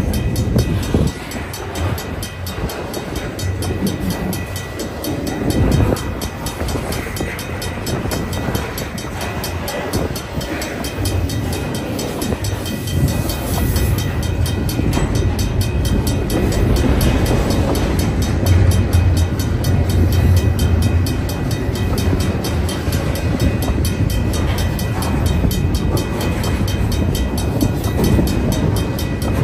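Double-stack intermodal container well cars of a freight train rolling past: a steady, loud rumble and clatter of steel wheels on the rails.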